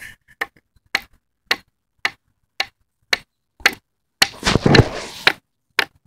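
Small multi-tool hatchet chopping at a wooden stick in light, quick strokes, about two sharp chops a second. About four seconds in comes a louder, longer burst of noise before the chopping goes on.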